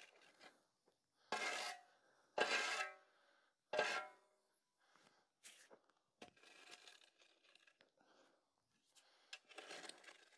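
A metal shovel scraping and scooping gravel: three short scrapes with a slight metallic ring in the first four seconds, then fainter scuffs and crunches near the end.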